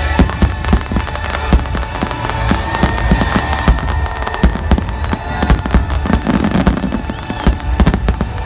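Aerial fireworks going off in a rapid barrage of sharp bangs, several a second, with a deep rumble under them. Music plays along underneath.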